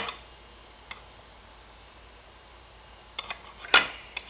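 Hard plastic toy figures being set down and knocked on a wooden tabletop: a few sharp clicks and taps, with a small cluster and the loudest knock shortly before the end.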